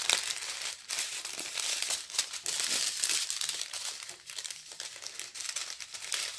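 Plastic bags crinkling and crackling as small zip bags of diamond painting drills and their packaging are handled, with many short sharp crackles.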